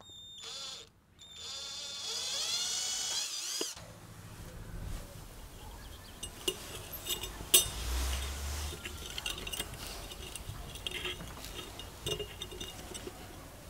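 Electric drill spinning a small twist bit through a thin brass plate: a whine that wavers in pitch, then stops sharply about four seconds in. After that come scattered light clicks and clinks as a fret saw blade is fitted through the drilled hole.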